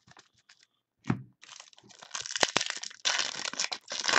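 Wrapper of a trading-card pack being torn open and crinkled: a low thump about a second in, then a few seconds of dense crackling and crinkling.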